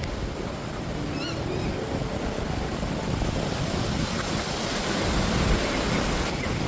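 Wind rushing over the microphone: a steady noise with gusty low rumble, swelling a little toward the end.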